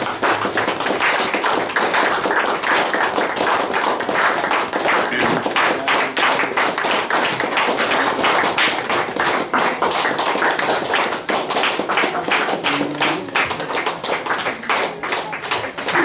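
A group of people clapping steadily, the individual claps heard distinctly, with no break.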